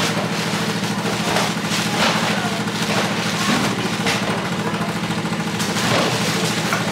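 Heavy knife chopping into coconuts: sharp, irregular knocks about once a second over a steady engine-like hum.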